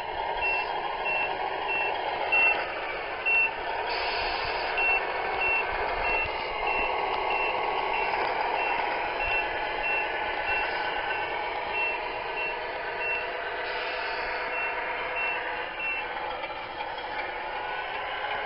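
Reversing beeper of a 1/14 scale RC semi truck's sound module: a short high beep repeating about every 0.6 s as the truck backs up its log trailer, stopping about two seconds before the end. Underneath runs the model's steady simulated truck engine sound.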